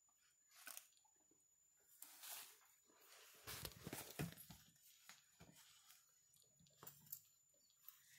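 Faint rustling and scattered soft clicks: handling noise of cloth and fur as a Java macaque monkey is lifted and moved about on a person.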